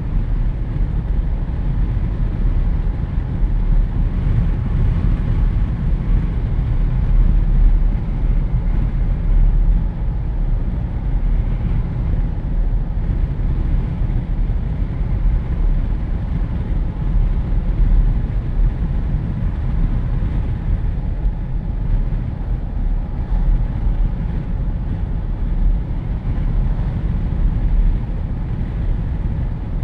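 Wind rushing through the open windows of a moving Jeep Wrangler, heard inside the cabin as a heavy, unsteady low rumble along with the noise of the vehicle on the road.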